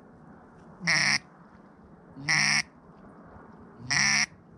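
Duck quacks: three loud single quacks, evenly spaced about a second and a half apart.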